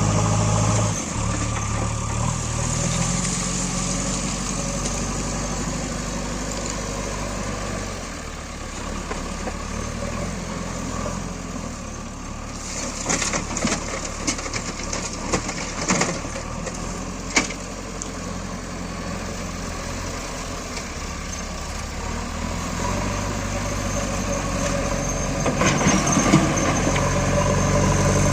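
Backhoe loader's diesel engine running, its pitch and load shifting as it works. A run of knocks and clatter comes in the middle, with one sharp knock a little after.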